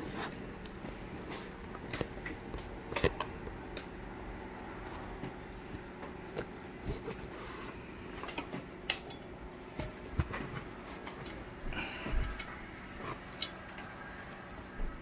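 Scattered small clicks and taps of hands handling the parts of a subwoofer being reconed, about ten in all, over a faint steady hum.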